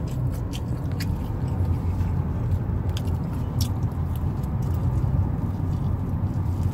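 A person biting and chewing pizza close to the microphone, with scattered sharp mouth clicks, over the steady low rumble of a car driving.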